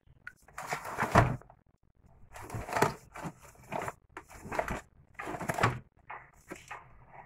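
A small cardboard box being turned over and handled in gloved hands: a series of short scraping, rustling noises, the loudest about a second in.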